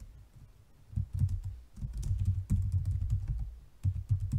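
Typing on a computer keyboard: after a short pause, a quick run of keystrokes starts about a second in and goes on in bursts until near the end.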